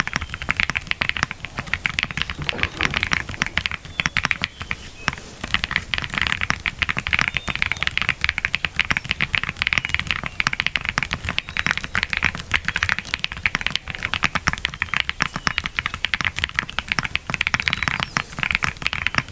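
Fast, continuous typing on a Blockboy Split65 mechanical keyboard, an aluminium gasket-mount board with tactile switches: a steady stream of keystroke clacks.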